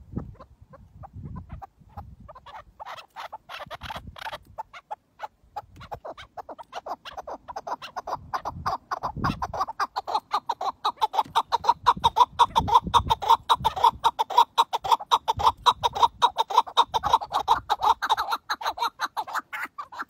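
Chukar partridge giving its rapid clucking call, a fast run of short chuk notes. It starts faintly about two seconds in, swells steadily louder and breaks off near the end.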